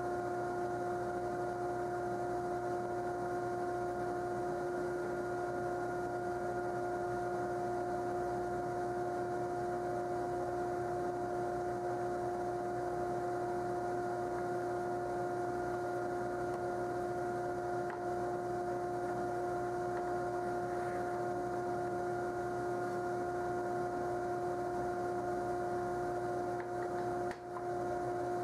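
Steady electrical mains hum: an unchanging drone with a pitch and its overtones, at even level throughout, with one brief dropout near the end.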